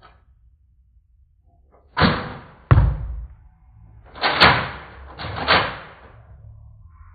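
Nerf blaster firing foam darts: four sharp thwacks, about two, three, four and a half and five and a half seconds in.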